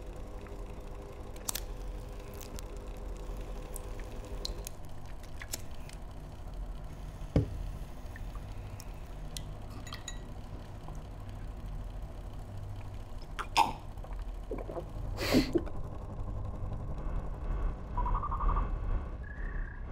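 Steady low hum of an electric desk fan running. Over it come scattered small clicks and taps at the table, with a sharper knock about seven seconds in and two more sharp sounds a little past the middle.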